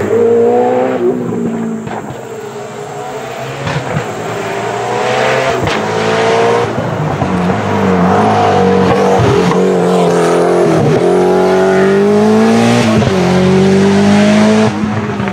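Peugeot 205 T16 Group B rally car's turbocharged four-cylinder engine accelerating hard up through the gears. The revs climb and fall back at each shift, with a sharp crack at each drop. It grows louder as the car approaches and passes, then falls away suddenly near the end.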